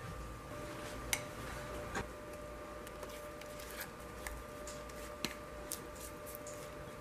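Scattered light clicks and taps of a ceramic bowl and silicone spatula against a ceramic baking dish as thick batter is poured and scraped in, over a faint steady hum.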